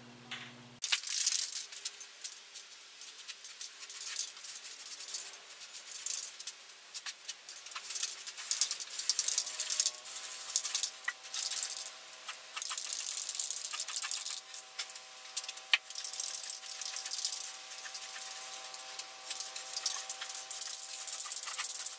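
Aerosol spray paint can being shaken, its mixing ball rattling in quick irregular clicks. A faint steady hum of several tones joins about ten seconds in.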